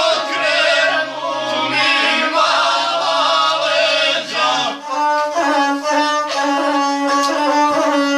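Gusle, the single-string bowed Balkan folk fiddle, playing a melody while a man sings in low phrases along with it. The singing stops about halfway through, and the gusle plays on alone with quick changing notes.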